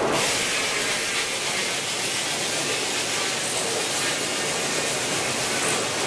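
Steam-powered sawmill at work, its saw bench driven by a Burrell traction engine: a steady high hiss with no distinct tones.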